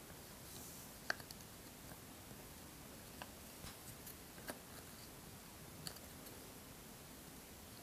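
Cardboard jigsaw puzzle pieces being handled and pressed together on a table: a few faint, scattered clicks and taps, the sharpest about a second in.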